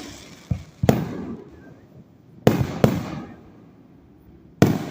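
Aerial fireworks bursting overhead: four sharp bangs, two of them close together in the middle, each trailing off in a rolling rumble, with a softer thump about half a second in.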